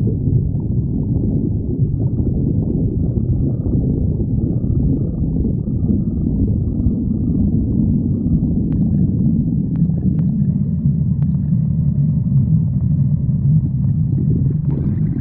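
A stomach growling: one long, unbroken low rumble at a steady level, with a few faint clicks a little past the middle.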